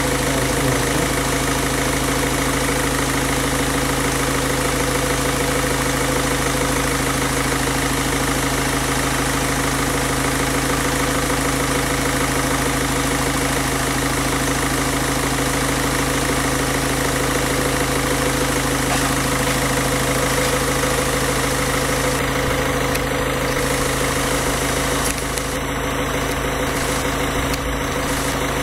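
1.6 HDi four-cylinder common-rail diesel engine idling steadily. It is running on injector-cleaning fluid drawn from a bottle in place of its diesel supply.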